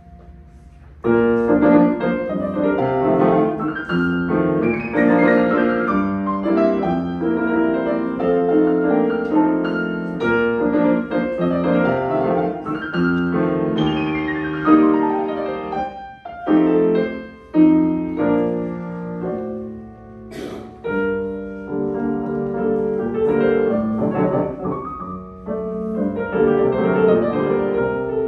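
Solo grand piano playing a fast classical piece: after a brief quiet moment it comes in loudly about a second in with dense chords and runs. About halfway there is a rapid descending run, followed by short detached chords with brief gaps.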